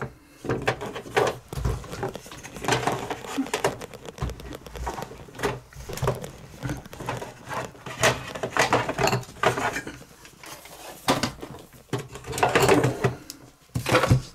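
Small hand tools being rummaged through and handled on a workbench: irregular clicks, light clinks and rustling, the kind made while picking a 3.5 mm washer punch out of a set.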